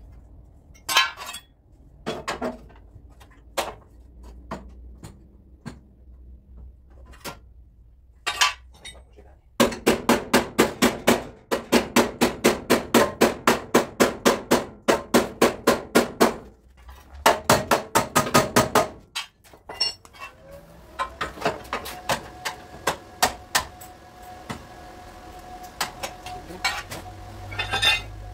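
Hammer striking car body sheet metal: a few scattered knocks, then runs of fast, even blows at about four or five a second, as in panel beating a dent. In the last several seconds a steady hum with a hiss takes over.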